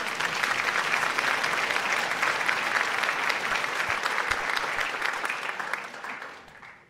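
Audience applause: many hands clapping together in a dense, steady clatter that fades out near the end.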